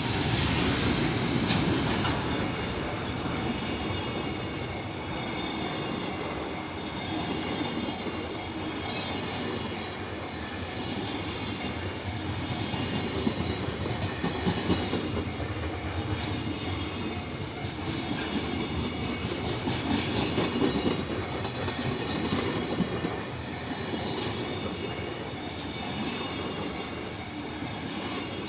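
Freight train's wagons rolling past, wheels clattering over rail joints in a continuous rhythm that runs unbroken throughout.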